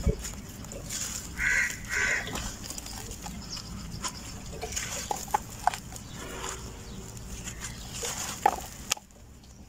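Hands squeezing and crumbling soft, dusty dirt in a wet bowl, with soft crumbling and patting and a few small sharp ticks. Two short animal calls sound in the background about one and a half and two seconds in.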